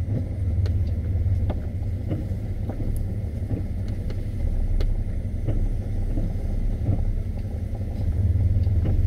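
Low, steady engine and road rumble of a 1996 Chevy heard from inside the cabin while driving, with scattered small knocks and rattles.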